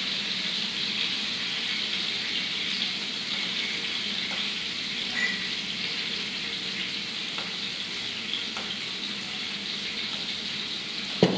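Steady sizzle of potatoes shallow-frying in butter in a pan on a gas stove, with one sharp knock near the end.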